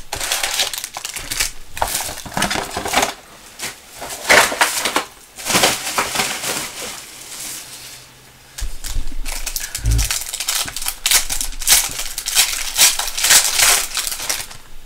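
Plastic wrapping of a box of trading cards and its packs being torn open, crinkling and ripping in repeated irregular bursts, with a dull thump about ten seconds in.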